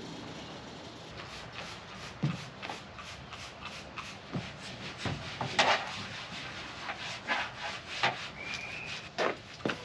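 Irregular rubbing, scraping and clicking handling noises, with one short high squeak a little past eight seconds in.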